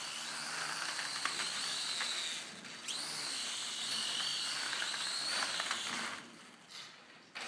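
Small toy quadcopter's electric motors and propellers running with a high whine and hiss. The whine breaks off about two and a half seconds in, spins back up with a quick rising pitch, and stops about six seconds in.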